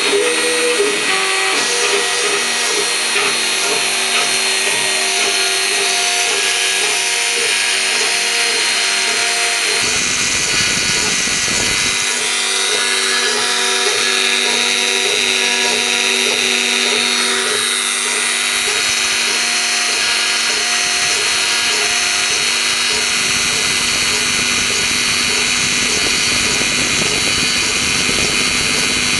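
Mini CNC router cutting wood: the spindle's steady whine and the cutter running through the wood, with the stepper motors humming in stepped tones that change pitch several times as the machine moves between cuts.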